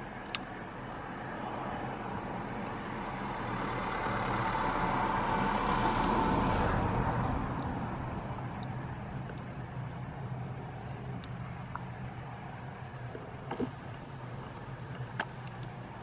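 A vehicle passing by: a rushing noise that swells to a peak about six seconds in and then fades, over a steady low hum, with a few faint clicks.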